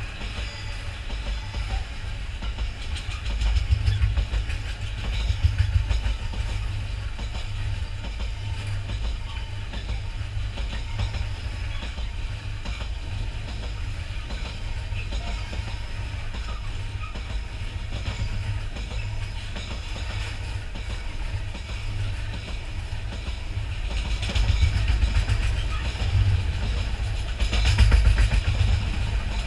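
Freight train of enclosed car-carrier wagons rolling past close by, wheels clattering over the rail joints over a steady low rumble. The noise swells a few seconds in and again near the end.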